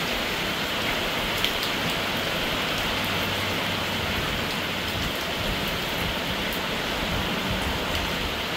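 Steady rain falling on a paved patio and garden, a constant hiss with scattered individual drop taps.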